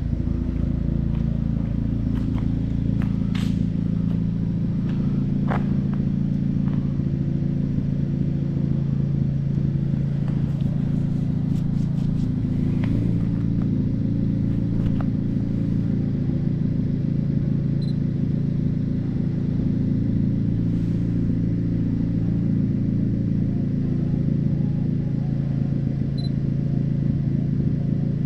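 A car engine running at a steady speed, with a few light clicks in the first half.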